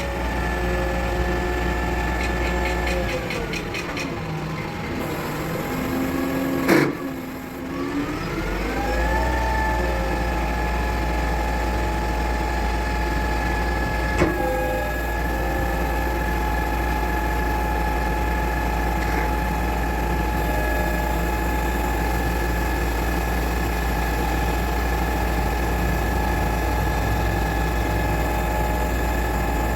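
Zoomlion 38M concrete pump truck's diesel engine running steadily at raised speed with a whine. About three seconds in it winds down, a sharp clunk sounds near seven seconds, and it climbs back up to the same steady speed, with a second brief click about halfway through.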